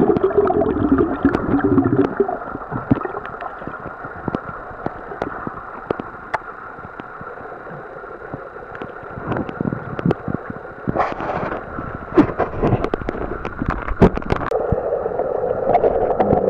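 Underwater noise picked up by a submerged camera: a steady murky hiss with many sharp clicks and knocks, and louder gurgling in the first couple of seconds and again near the end.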